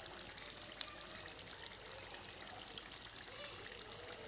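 Chicken karahi gravy simmering in a pan, bubbling and sizzling steadily with many fine crackling pops.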